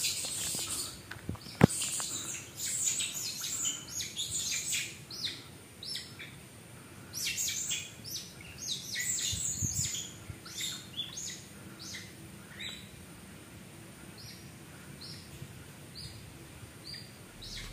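Many short, high-pitched chirping calls, some in quick runs and some falling in pitch, growing sparser toward the end. A single sharp knock sounds about one and a half seconds in.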